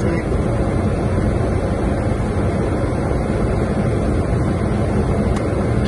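Steady rush of airflow and engine noise on the flight deck of a Boeing 737-800 on final approach, with a faint steady tone over it.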